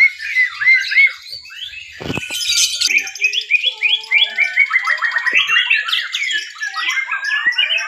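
White-rumped shamas (murai batu) singing in a contest: a dense, continuous run of rapid whistled phrases, trills and chatter. A sharp knock sounds about two seconds in.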